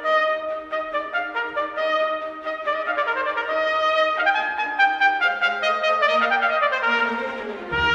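Instrumental background music, a melody of held pitched notes; a low held note comes in about five seconds in, and the melody slides downward near the end.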